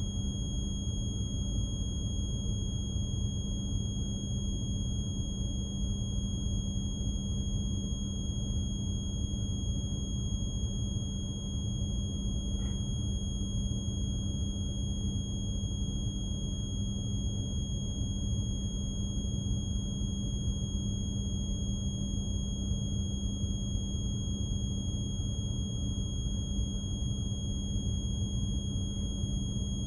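Container ship's machinery droning steadily: a deep rumble with a steady hum and a thin high whine over it, unchanging throughout, with one faint tick about halfway through.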